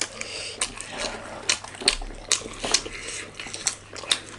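Close-up eating sounds: chewing and wet mouth clicks of a meal of rice and curry, with irregular sharp clicks of dishes or cutlery.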